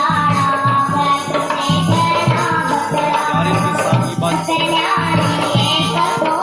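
A folk song: singing over a steady drum beat, with tambourine jingles.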